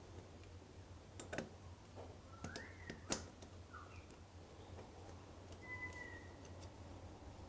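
Small metallic clicks and taps of brake-pad retaining pins and springs being refitted into a Brembo radial-mount brake caliper, a few separate clicks with the sharpest about three seconds in.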